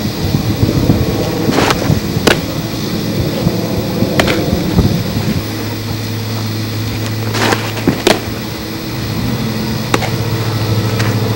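Outdoor background noise on a camcorder microphone: a low rumble for the first half, giving way about halfway through to a steady low mechanical hum, with a few sharp clicks or knocks scattered through.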